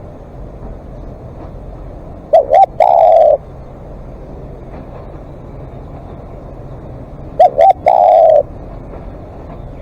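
Spotted dove cooing twice, about five seconds apart. Each call is two quick short coos followed by one longer, louder coo.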